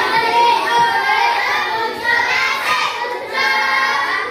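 Several children singing together, with held notes.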